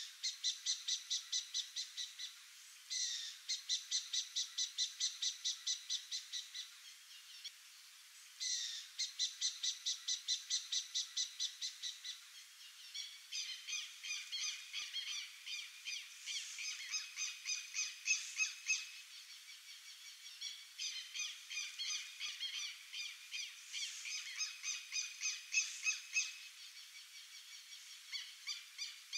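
Animal calls repeated evenly at about three or four a second, in runs of several seconds separated by short gaps. From about halfway through, a second set of calls overlaps the first.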